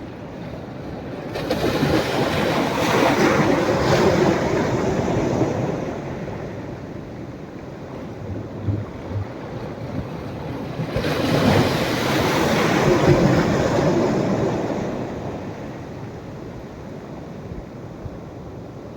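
Sea waves breaking on a sandy beach: two waves about ten seconds apart, each swelling into a rushing crash and then washing out, with a steady quieter surf wash in between.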